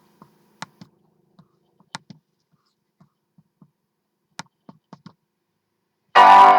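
Scattered light clicks of computer keys, irregular and a few per second. About six seconds in, loud music cuts in suddenly with a full held chord.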